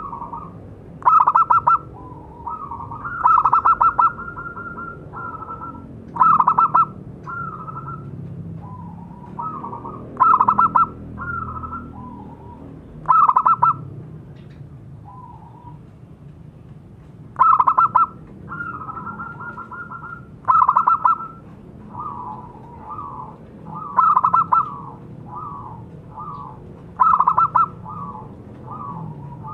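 Zebra dove (local perkutut) singing: loud phrases of rapid, pulsed coos repeat about every three to four seconds, with softer coos between them.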